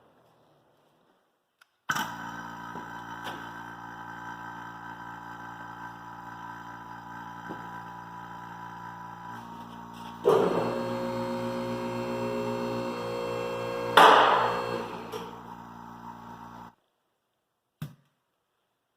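Vacuum pump running on a tractor tire's valve stem, pulling the air out of the inner tube before it is filled with calcium chloride solution. It starts suddenly, gets louder with a change in tone about ten seconds in, gives a loud hiss about fourteen seconds in, and cuts off sharply, followed by a single click.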